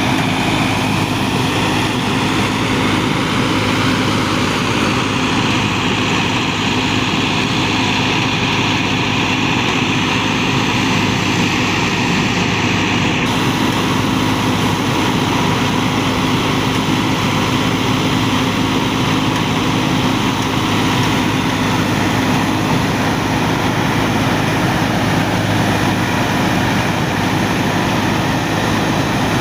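Massey Ferguson 385 tractor's four-cylinder diesel engine running steadily, together with the noise of the harvesting machinery it drives.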